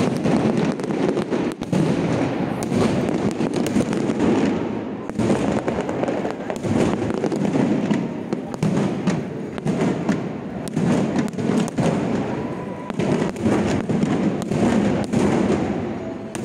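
Aerial fireworks display: many overlapping shell bursts and crackles following each other without a pause.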